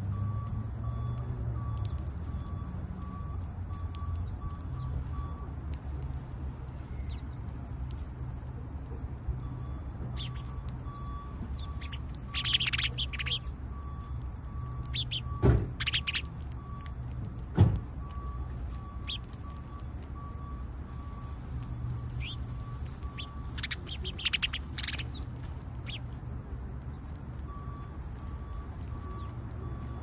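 House sparrows chirping in three short bursts of quick high chirps over a steady low rumble, with a faint high beep repeating on and off. Two sharp knocks sound in the middle.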